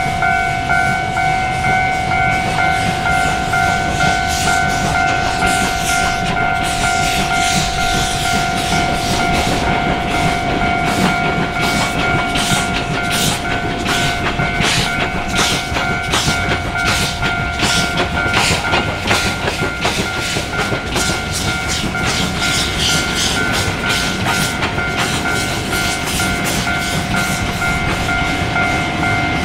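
DT668 steam locomotive running, with a fast, even run of sharp beats that is strongest from about 6 to 20 seconds in. A steady high-pitched tone sounds underneath.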